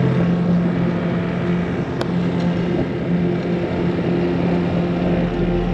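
High-speed ferry's engines running, a steady drone.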